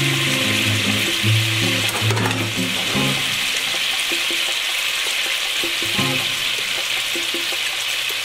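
Beef and its cooking juice sizzling in a hot skillet, a steady hiss as the juice starts to reduce.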